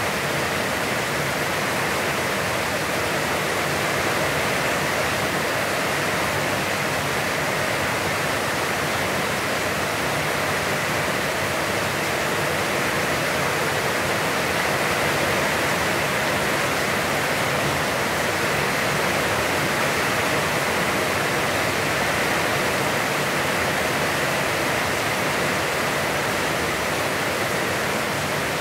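Heavy, constant rain falling, a steady hiss that does not let up.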